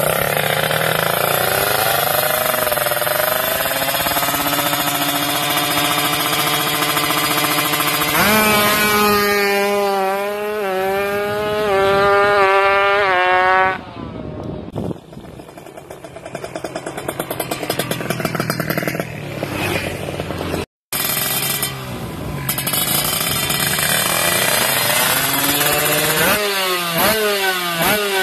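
Kawasaki Ninja two-stroke motorcycle engine running and revving hard, its pitch climbing and dropping in quick repeated rises. The level drops suddenly about halfway through and the sound breaks off briefly, then the engine revs again with rising pitch near the end.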